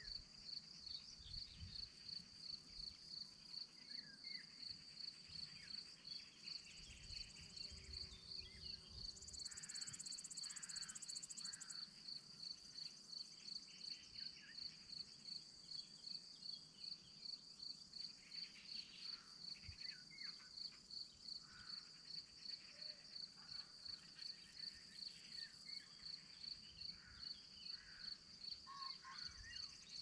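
An insect chirping in a steady rhythm of about two high chirps a second, with a higher, hissing buzz for about two seconds a third of the way in. Faint short bird calls are scattered through it.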